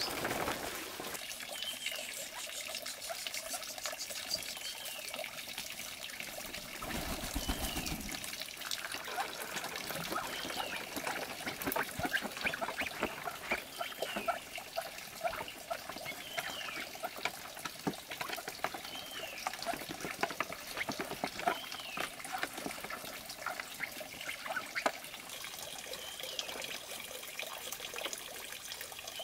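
Muscovy ducks pecking and dabbling at grain feed in a wooden trough: a busy, wet-sounding clicking, with a short high chirp repeating every two or three seconds. In the first second, grain pours from a sack into a plastic basin.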